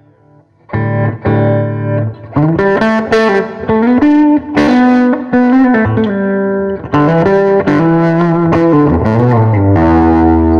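Electric guitar, a 2001 Gibson ES-335, played through a tube amp with a light overdrive: two short chords, then a bluesy single-note lead line with string bends, ending on a held chord.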